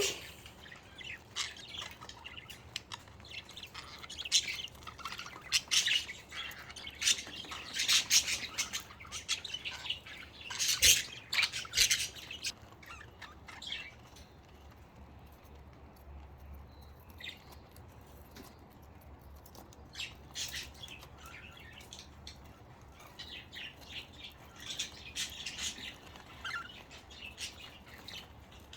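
Budgerigars squabbling with quick chirps and harsh squawks: the calls come thick and fast for the first dozen seconds, thin out in the middle, and pick up again near the end.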